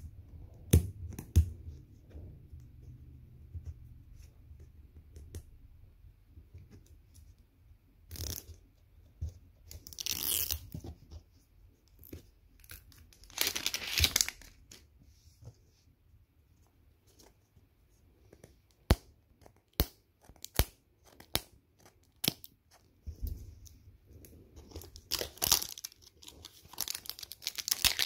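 Clear plastic shrink-wrap being torn and peeled off a hard plastic Mash'ems capsule ball, crinkling in several separate bursts. Between the bursts come a few sharp clicks.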